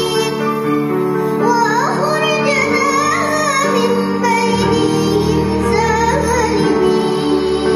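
A young girl singing a slow melody into a microphone over sustained instrumental accompaniment.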